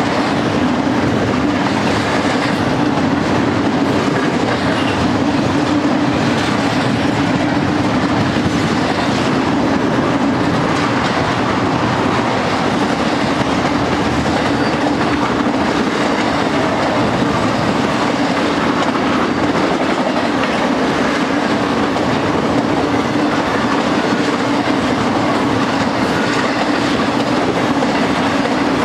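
Intermodal freight cars rolling steadily past: steel wheels running on the rails in a continuous, even noise with a steady low hum underneath.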